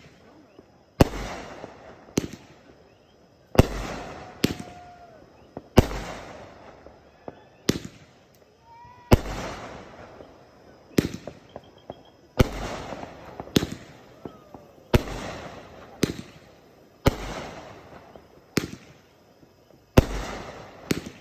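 Fireworks exploding in a steady series, a sharp bang about every second or so. Each bang is followed by a long echoing rumble, with smaller cracks in between.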